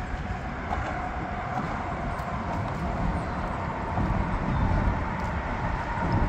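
Steady outdoor rumble of road traffic mixed with wind buffeting the microphone, swelling a little about four seconds in.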